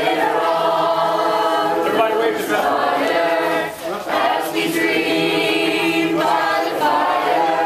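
A large group of men's, women's and children's voices singing together in chorus, with sustained phrases and a brief break about four seconds in.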